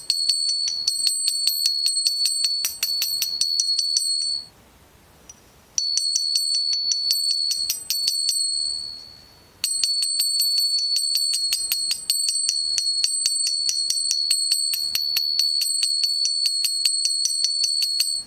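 Rapid metallic tapping, several taps a second, each with a bell-like ringing, demonstrating how a knocking valve tappet ('стакан') sounds in a VAZ-2109 engine. It stops about four seconds in, resumes near six seconds, fades out around eight to nine seconds and starts again at about ten seconds.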